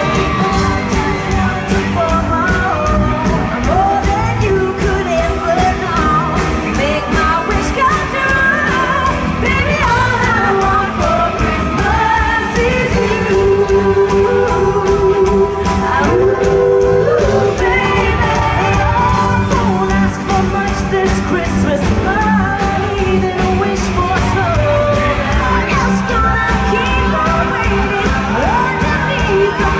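Live pop-rock band playing a song: sung lead vocals over electric guitar, keyboards and drums, with a steady beat throughout.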